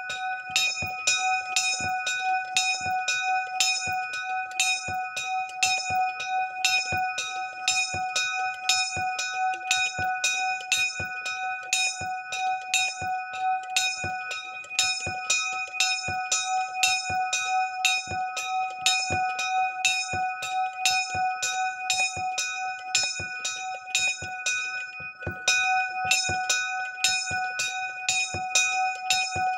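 Small swinging bronze bell ringing with its new clapper, which strikes quickly and evenly over and over while the bell's tones ring on without a break.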